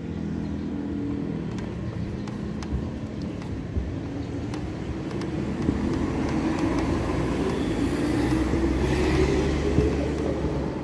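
A motor vehicle's engine running, swelling louder about eight to nine seconds in and then easing, with scattered light clicks.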